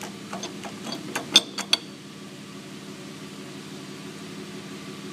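A few sharp clicks and knocks in the first two seconds, the loudest about a second and a half in, over a steady low electrical or mechanical hum that carries on alone afterwards.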